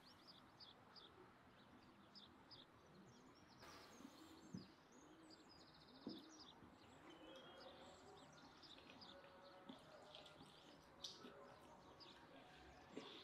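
Faint chirping and twittering of small birds throughout, with a few soft, short eating noises from someone picking meat off a bone, about four and a half and six seconds in.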